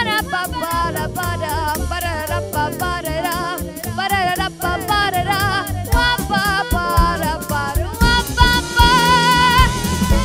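A girl singing into a handheld microphone over an instrumental accompaniment with a steady drum beat. Near the end she holds one long note.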